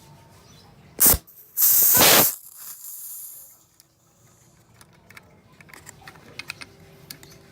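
Pressurised CO2 escaping from a WG 321 Glock-style airsoft pistol as its gas cartridge is unscrewed counterclockwise to vent it. There is a short sharp burst about a second in, then a loud hiss lasting about half a second that tails off over the next second and a half: the leftover gas is being emptied so the pistol keeps well in storage. Small clicks and handling ticks follow near the end.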